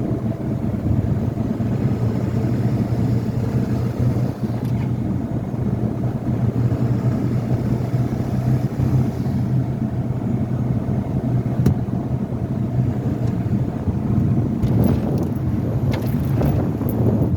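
2000 Ford F-350's 7.3 L Power Stroke turbo-diesel V8 running under way, a steady low engine and road drone, with a few faint short ticks near the end. The owner's intermittent chirp on letting off the pedal is not clearly heard.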